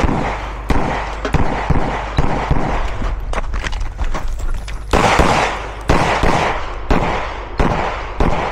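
Semi-automatic pistol fired in a string of shots at irregular spacing, with a quieter stretch in the middle. Each shot trails off in echo.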